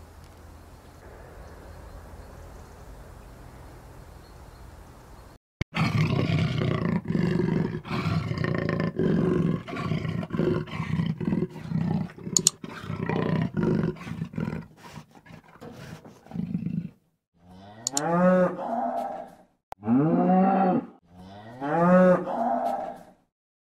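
Faint steady hiss for about five seconds, then a leopard growling and snarling, loud and rough, for about eleven seconds. After it, a cow moos three times in long calls.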